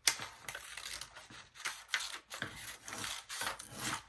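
Scissors cutting through paper: a run of irregular snips and rustles, with a sharp click at the start.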